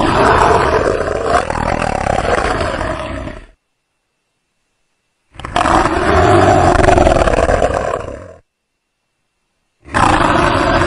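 Creature roar sound effect played three times, each roar about three seconds long with a pitch that rises and falls, separated by silence; the third begins near the end.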